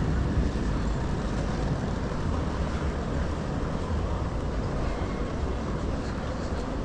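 Steady city street background noise: a low rumble with an even hiss above it and no single event standing out.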